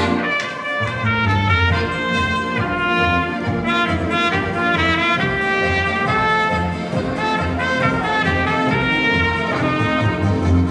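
A trumpet playing a melody over a piano accordion, whose low bass notes keep a steady beat under it.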